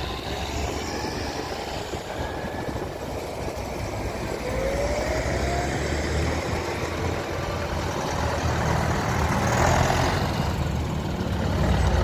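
Diesel tractor engines running as farm tractors drive past one after another, mixed with passing car traffic. The engine sound grows louder near the end as a large John Deere tractor comes close.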